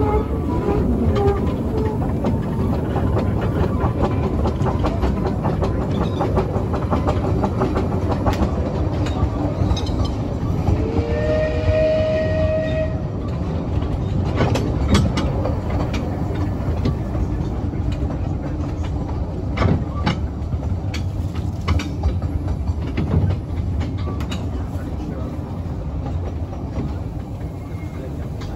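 Kerr Stuart Wren 0-4-0 saddle-tank steam locomotive running on narrow-gauge track, a steady clatter of its motion and wheels over the rails. About eleven seconds in a steam whistle sounds once for about two seconds, sliding up in pitch as it opens and then holding one note.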